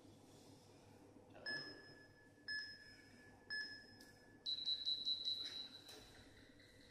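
Interval timer app on a tablet beeping a countdown: three short beeps about a second apart, then a longer, rapidly pulsing higher tone that marks the start of the next 20-second work interval.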